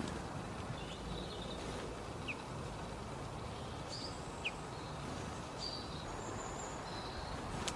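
Short, high bird chirps, scattered one at a time over a steady outdoor background noise, with a sharp click near the end.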